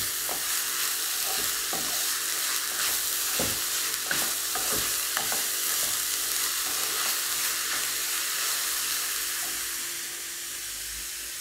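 Shredded cabbage and carrot sizzling in coconut oil over a high flame, while a wooden spatula stirs and scrapes through the pan in short strokes. The stirring stops near the end and the steady sizzle carries on.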